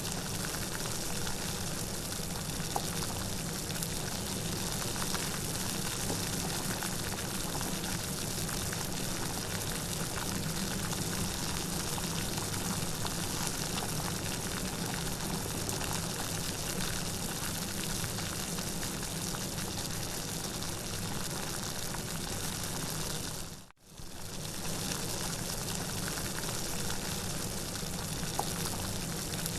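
Steady, dense rainfall hiss. About 24 seconds in it drops out for a moment and fades back in.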